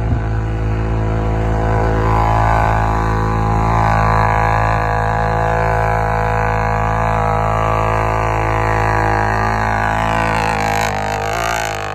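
ATV engine running with a steady drone, its pitch wavering near the end.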